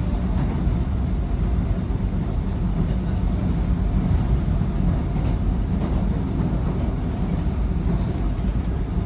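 Seoul subway train running at speed across a steel truss bridge, heard from inside the car: a loud, steady, deep rumble of wheels and rails.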